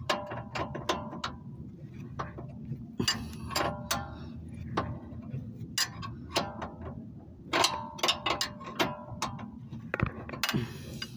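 Hand wrench clicking in short, irregular runs as it is worked back and forth on a suspension control-arm bolt, loosening it.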